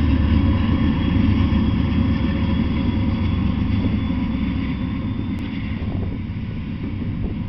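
Double-stack intermodal freight train passing close by: a steady rumble of wheels on rails, easing slightly toward the end.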